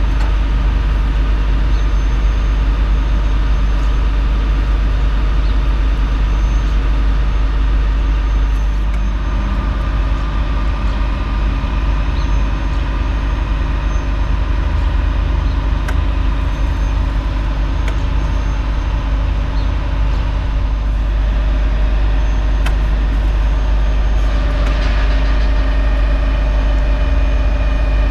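Truck engines running steadily while a Ford F-250 pickup is driven slowly up the steel ramps of a car-carrier trailer, with a few faint clicks. A higher engine tone joins near the end.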